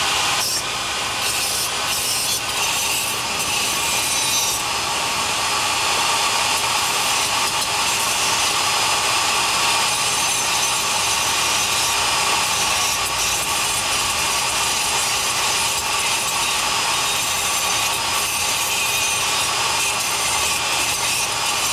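Handheld rotary tool with a small abrasive cutoff wheel grinding steadily, a continuous high-pitched whine. It is cutting through cement and into the rusted steel armature beneath, opening the spalled area to expose the corroded metal for repair.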